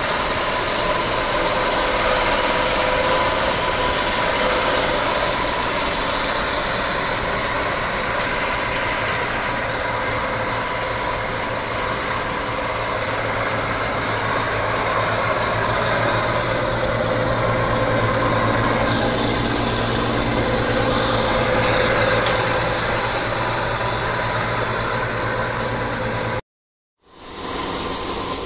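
Bizon Z056 combine harvester at work in a grain crop: the steady drone of its diesel engine mixed with the whirr of its cutting and threshing gear. Near the end the sound cuts out for a moment, then comes a steady hiss of grain pouring from the unloading auger into a trailer.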